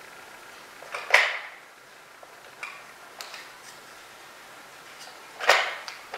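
Two sharp knocks about four seconds apart as Nerf darts are shot at plastic water bottles, with a few faint clicks in between.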